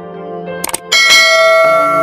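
Background music of held notes. Just before a second in there are two sharp clicks, then a loud bell-like chord strikes and rings on.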